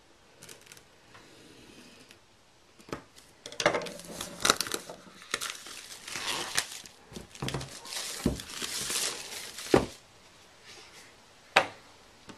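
Plastic shrink-wrap being cut and peeled off an iPad box, crinkling and tearing in irregular bursts, then one sharp tap near the end.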